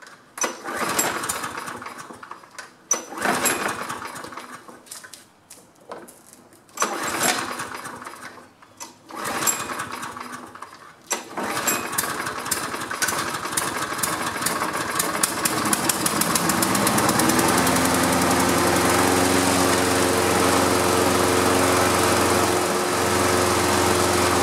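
Toro Recycler walk-behind lawn mower's small four-stroke engine being pull-started. Several pulls sputter and die before it catches about eleven seconds in, runs unevenly, then settles into a steady run. The slow start is typical of a carburetor flooded by tipping the mower over.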